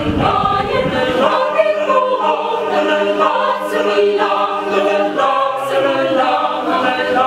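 Mixed choir of men and women singing a Filipino Christmas song a cappella in several parts, moving through held chords.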